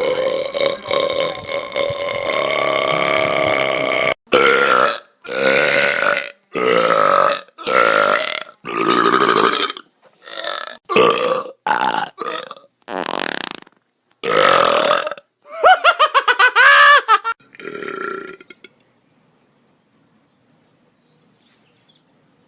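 Loud belching: one long drawn-out burp lasting about four seconds, followed by a string of about a dozen shorter burps, one after another.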